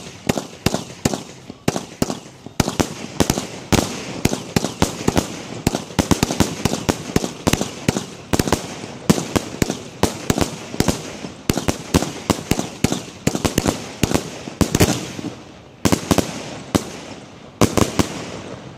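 Aerial firework shells launching and bursting in a rapid, continuous volley, several sharp bangs a second, with a brief let-up late on.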